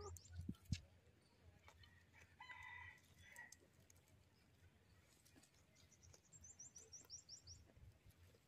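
Quiet rural ambience with faint bird calls: a distant rooster crowing briefly about two and a half seconds in, and a quick run of high, falling chirps from a small bird near the end. Two soft low thumps just after the start.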